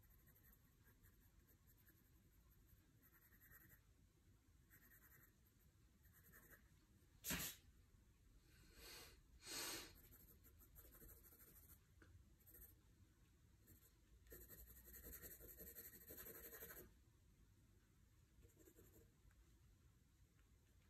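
Faint scratching of a graphite pencil on sketchbook paper in short shading strokes, with a longer spell of steady shading late on. About seven seconds in there is one sharp tap, followed by two brief louder sounds.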